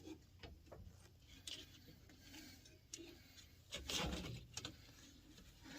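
Faint clicks and scrapes of metal parts and tools being handled under a truck, with a louder scrape about four seconds in.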